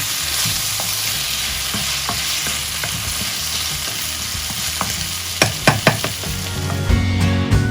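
Beef, onions and green chillies frying in a pan with steady sizzling while being stirred. A few sharp clicks come about five and a half to six seconds in, and background music starts near the end.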